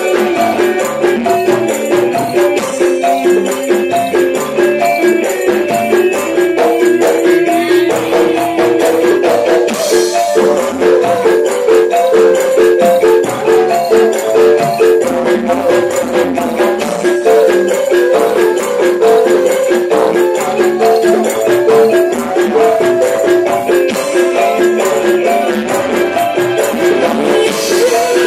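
Campursari music from a gamelan ensemble: metallophones ring out a quick, repeating melody over busy shaker-like percussion.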